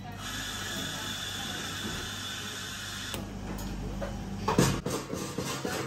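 A La Marzocco espresso machine hisses steadily for about three seconds. Then come clinks and knocks of cups and dishes at the café counter, the loudest about four and a half seconds in.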